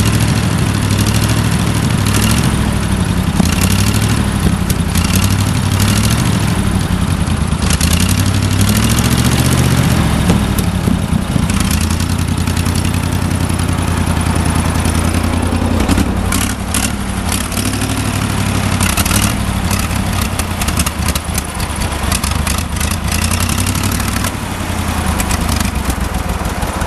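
Wisconsin VP4 air-cooled flathead V4 engine running unevenly, its speed shifting a couple of times, with sharp pops and crackles through the second half. It is running well out of ignition timing and short of fuel.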